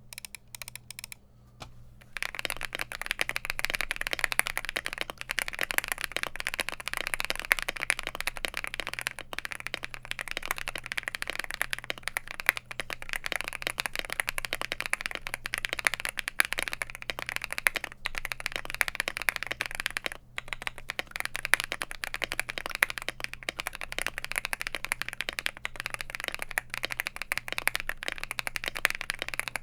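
Fast, continuous typing on an Infiverse INFI75 mechanical keyboard with factory-lubed Akko Cream Blue Pro tactile switches, a gasket-mounted polycarbonate plate and SA profile keycaps. A few separate keystrokes come first, then steady fast typing from about two seconds in.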